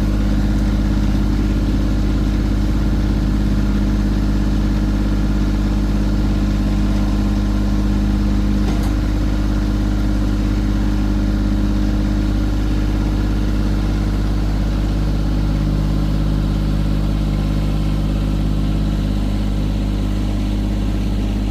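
An engine running steadily at an even speed, its pitch unchanging.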